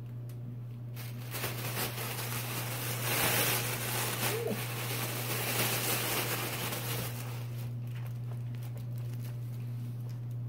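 Crinkling, rustling fabric of a cat tunnel as a puppy crawls through it, loudest for several seconds in the middle. A steady low hum runs underneath.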